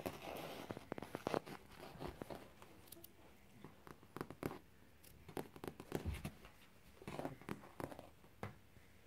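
Faint, irregular scratching and scuffling as a kitten and a long-haired cat play around a sisal scratching toy: claws catching on the sisal and paws scrabbling on the wooden floor in short scrapes and ticks.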